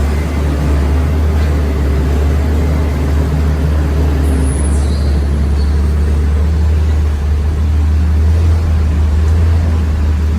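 Heavy diesel engine of earthmoving machinery running steadily at a constant speed, a loud low drone.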